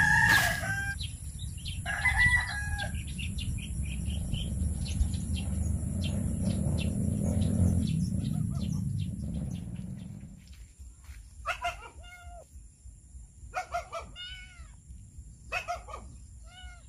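A rooster crowing, with a steady low rumble under it for the first ten seconds or so. After that rumble fades, short pitched calls come in quick pairs every second or two.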